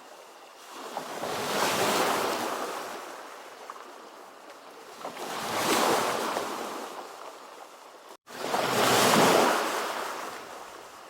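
Ocean waves breaking and washing up the shore, three surges that each swell and fade over a few seconds. A momentary cut to silence about eight seconds in, just before the loudest wave.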